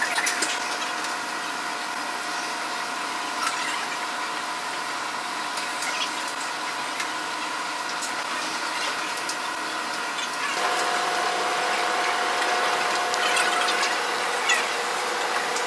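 Electric drive motors and gearboxes of a mobile robot's powered-wheelchair base whining steadily as it drives, with a few light clicks. The whine gets louder about ten and a half seconds in.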